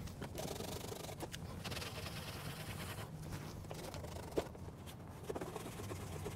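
Faint rubbing and scraping of an alcohol cleaning pad being wiped along the plastic front panel of a Can-Am Spyder, with a few light clicks.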